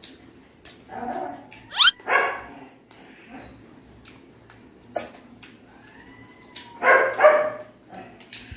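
A puppy yelping and barking: a rising yelp and a bark about two seconds in, then two quick barks near the end.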